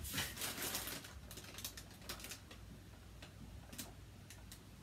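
Dry-erase marker writing on a whiteboard: a run of scratchy strokes in the first second, then scattered short ticks and strokes as the marker touches and leaves the board.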